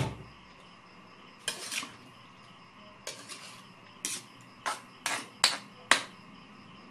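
Metal spatula scraping and clanking against a metal wok while stirring sliced bottle gourd and pork, in irregular strokes, the loudest near the end.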